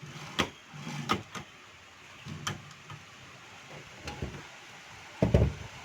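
Godrej manual typewriter carriage released from its escapement lock and moving freely along its rack under spring tension, with a string of sharp mechanical clicks and a heavier thump a little past five seconds.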